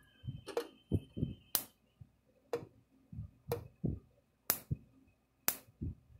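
Solid-state electric fence charger firing about once a second, each pulse a sharp snap, while a screwdriver shorts its output terminal. Softer low thumps come between the snaps.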